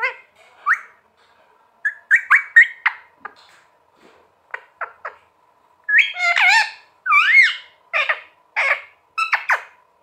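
Indian ringneck parakeet giving a run of short chirps and whistles with quick pitch swoops, in bursts, the longest and loudest about six to seven and a half seconds in. A faint steady hum sits underneath.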